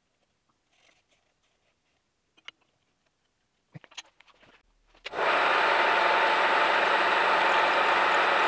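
A few faint taps of tools being set down on a steel table, then, about five seconds in, a drilling machine starts suddenly and runs loud and steady as it bores into an ironwood and mammoth-ivory knife-handle block.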